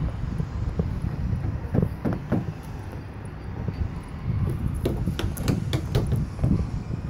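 Wind buffeting the microphone as a steady low rumble, with a scatter of sharp knocks and clicks, thickest about five to six seconds in.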